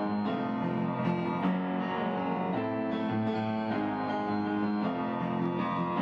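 Instrumental background music, held notes and chords changing every second or so.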